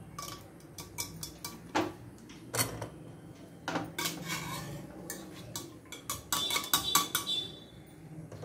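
Wire-mesh strainer clinking and scraping against an aluminium pressure cooker as boiled seeds are scooped out, with scattered light knocks and a quicker run of clatter about six seconds in.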